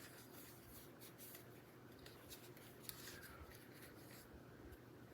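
Near silence with faint rustling and a few small clicks of a paper card being handled.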